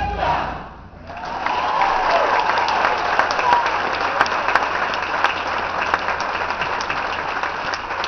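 The concert band's last chord dies away, and about a second in the audience breaks into steady applause, with some voices calling out in the crowd.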